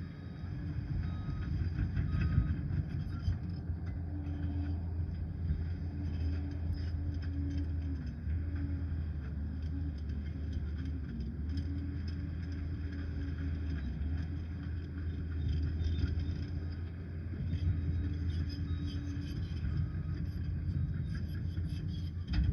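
Diesel engine of a Liebherr 746 crawler dozer running steadily under load, a deep low drone whose pitch wavers slightly, with scattered light clicks and clanks.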